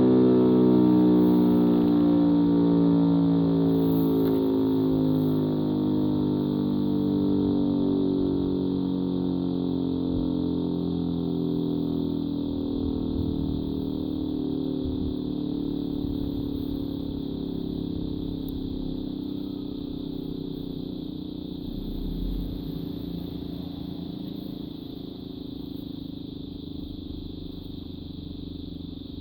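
E57 electromechanical rotor siren winding down after switch-off: its tone falls slowly and steadily in pitch and fades away.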